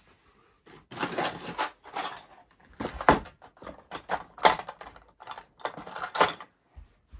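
Hard objects clattering and knocking in an irregular run of clicks and rattles: tools being rummaged through on a workbench while hunting for a knife.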